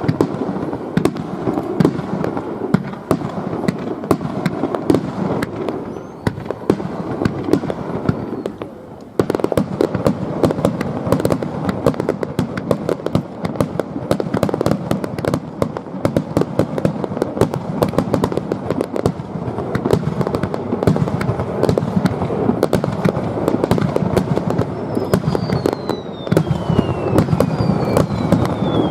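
Fireworks display: a dense, continuous crackle of many shells bursting, with a short lull about eight seconds in before it resumes abruptly. Two falling whistles near the end.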